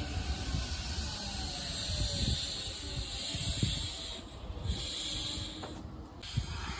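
Sanyo Electric Railway 6000-series electric train at a station platform: a steady hiss over a low rumble, with a faint falling electric whine in the first second or so.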